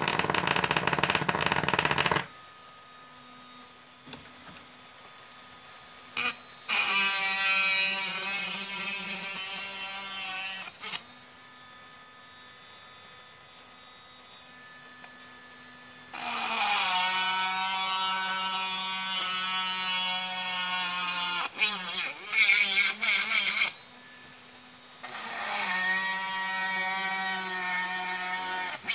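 Homemade mini drill, a small salvaged brushed DC motor with a drill bit on its shaft, humming faintly as it spins freely, then three times boring into a wooden board: each time the whirring gets loud and its pitch drops as the bit bites and loads the motor. A loud rustle of handling comes first, lasting about two seconds.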